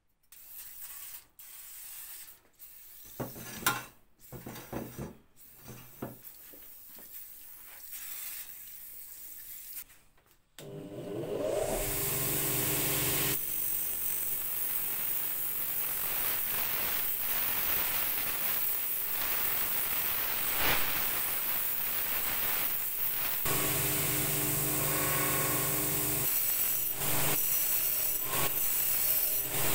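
Metal parts of a kerosene stove burner clinking and knocking as they are handled. About ten seconds in, a bench grinder spins up with a rising whine and then runs steadily. Its wire brush wheel scrubs a perforated steel burner tube and burner plate clean.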